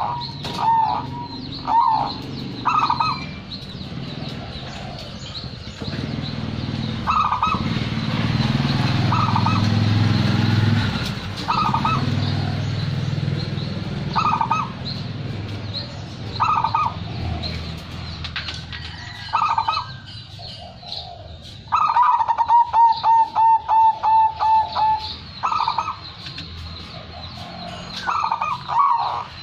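Zebra dove (perkutut) cooing: short separate coo phrases every second or two. About three quarters of the way in comes a fast run of about a dozen rapid, evenly spaced notes. A low rumble sits underneath for several seconds in the first half.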